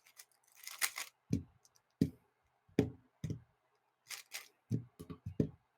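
A 3x3 speed cube being turned rapidly during a timed solve: an irregular run of short plastic clicks and clacks, some with a duller knock.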